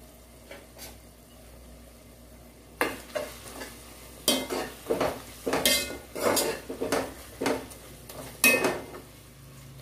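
Steel slotted spoon stirring and scraping through a softened tomato and onion masala in a granite-coated pot, a run of scrapes and clacks starting about three seconds in, over a faint steady sizzle of the masala frying.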